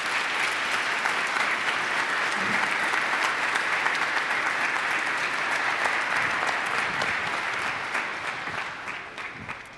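Congregation applauding, steady clapping that fades out near the end.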